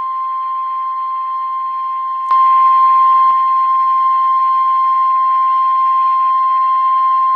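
Weather-radio warning alarm: a single steady tone at about 1 kHz, the NOAA Weather Radio 1050 Hz warning alarm that announces a severe thunderstorm warning. It gets louder with a click about two seconds in.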